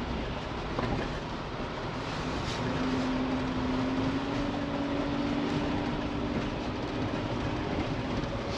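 A Jeep driving on a snowy road: steady engine and tyre noise with a faint hum that edges slightly up in pitch partway through.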